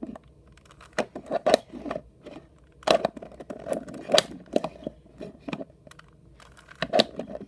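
A 3x3 Rubik's Cube turned by hand: quick plastic clicks and clacks as its layers rotate, coming in irregular clusters of a few turns at a time.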